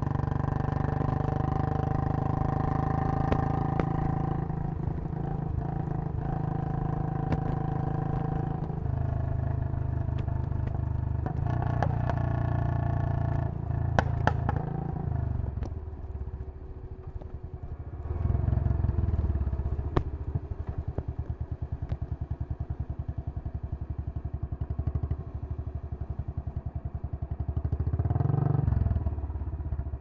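Royal Enfield Bullet 500 single-cylinder engine with a Punjab long-bottle exhaust. It runs steadily at speed for about fifteen seconds, then slows and settles into a slow, even idle beat. The throttle is blipped briefly twice.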